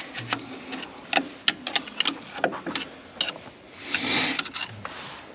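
Irregular metal clicks and taps of drum-brake shoes and their return spring being worked by hand on the backplate, with a short scrape about four seconds in.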